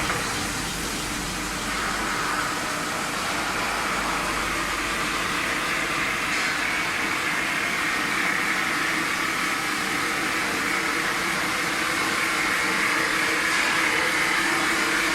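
CNC metal spinning machine running, a steady mechanical whirring noise with a higher hissing band in it.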